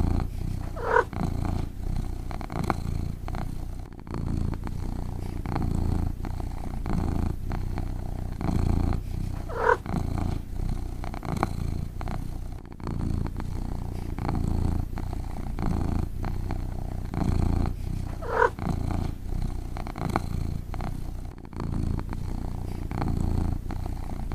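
Domestic cat purring steadily, a low rumble that swells and fades in pulses about once a second. A brief higher sliding sound cuts in three times, about nine seconds apart.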